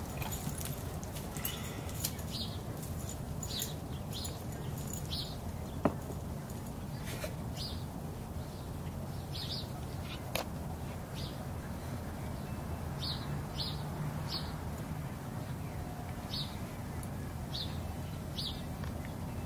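A small bird chirping repeatedly, short high chirps at irregular gaps of about a second, over steady low background noise. Two sharp clicks stand out, about six seconds in and near ten seconds.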